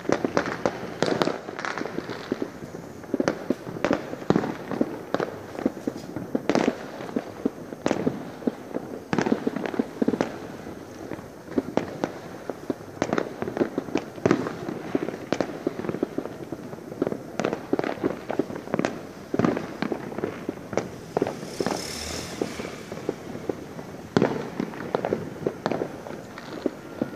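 New Year's Eve fireworks and firecrackers going off in a dense, irregular run of bangs and pops with no let-up, and a short hiss about 22 seconds in.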